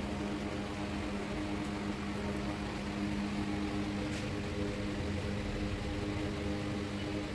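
Steady mechanical hum with a low rumble beneath it, unchanging throughout.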